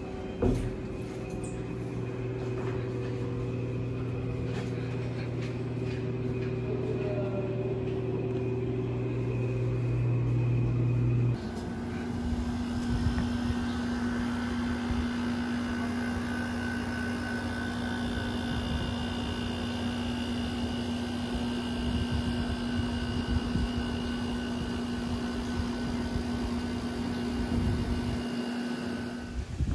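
Steady machine hum with a single sharp click about half a second in. About eleven seconds in it cuts abruptly to a different steady hum carrying higher whining tones.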